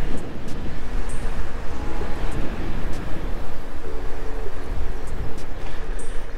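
Wind buffeting the microphone while riding a bicycle downhill: a steady rushing noise with a deep rumble.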